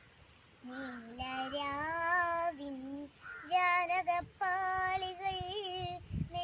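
A young girl singing solo, unaccompanied, in long held notes with a wavering pitch. The singing starts about a second in, with short breaks between phrases.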